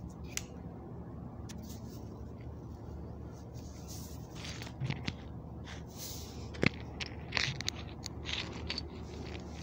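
Scattered light metal clicks and scrapes as the oily crankshaft and connecting rods of an opened two-piston AC compressor are moved by hand, with one sharper click about two-thirds of the way through, over a steady low hum.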